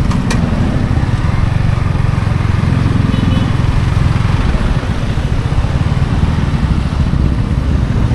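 Yamaha XSR155's single-cylinder engine running through its stock exhaust while riding, its note rising and easing as the throttle changes.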